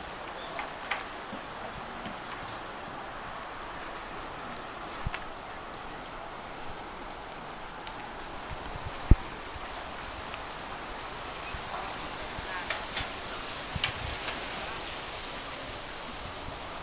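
Outdoor ambience: short high-pitched animal chirps repeat irregularly about once a second over a steady background hiss. A single sharp click sounds about nine seconds in.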